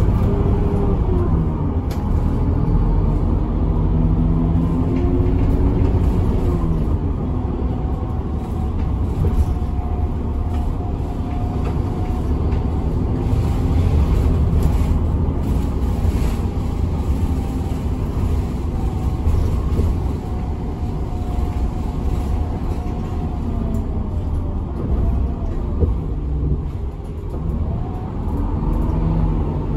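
Town bus heard from inside the cabin: the engine runs over a steady low rumble of road noise, its pitch gliding up and down several times.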